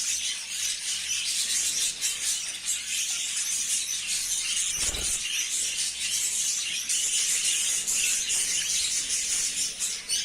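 A flock of budgerigars chattering and chirping continuously, a dense overlapping stream of small high twitters and clicks. A brief low thud comes about halfway through.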